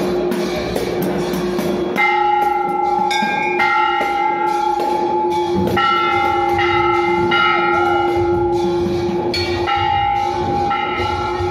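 Music: a steady drone note under a slow melody of long held notes that starts about two seconds in, with rapid sharp strikes throughout.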